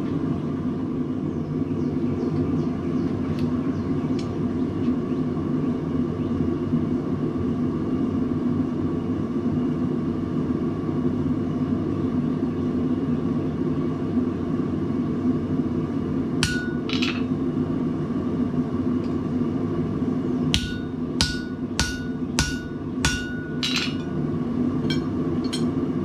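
Hammer driving a hot-cut slitting chisel through red-hot bar stock on the anvil to slit a hole: two blows about two-thirds of the way in, then a run of about six ringing blows a little over half a second apart, and a few lighter taps near the end. A steady low roar from the forge runs underneath.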